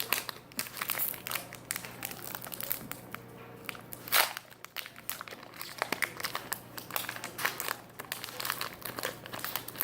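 Crinkling and crackling of a foil Pokémon booster pack wrapper being handled and opened, irregular throughout, with one louder crackle about four seconds in.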